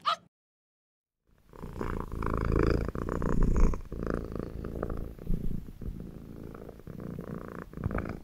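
Leopard cat purring: a low, rough, pulsing rumble that starts about a second and a half in and goes on steadily, rising and falling in loudness.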